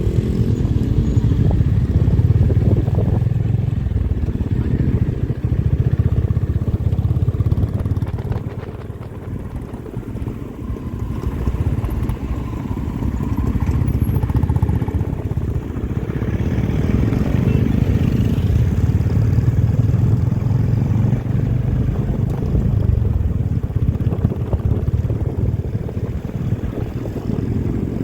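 Motorcycle exhaust running steadily with a deep, low rumble. It eases off for a couple of seconds about a third of the way in, then builds back up.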